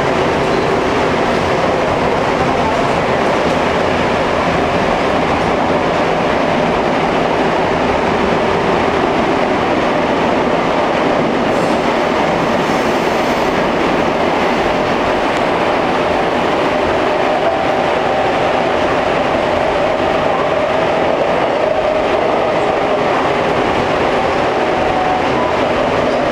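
Seoul Subway Line 2 train running, heard from inside the car: a steady, loud rumble of wheels on rail with a faint steady tone in it.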